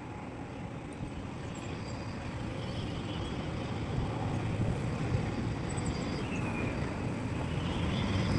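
Heavy diesel earthmoving machinery running with a steady low rumble that slowly grows louder.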